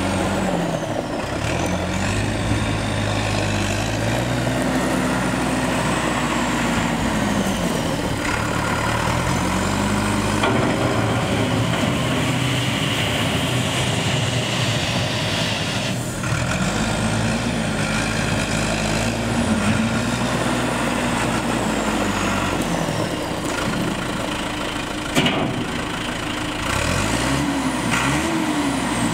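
John Deere 5603 tractor's diesel engine running as it drives and works its 542 front loader on gravel, the engine speed rising and falling several times. A single sharp clack near the end.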